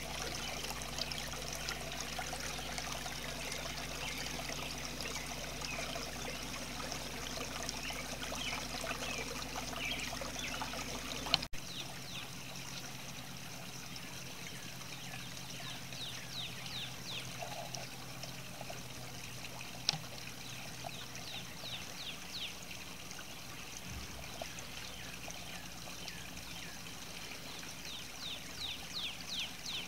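Small garden fountain trickling: water pours from a pump-shaped spout and splashes down through a barrel basin. About 11 seconds in, the sound cuts to a quieter, steady trickle, and a few short high chirps come and go.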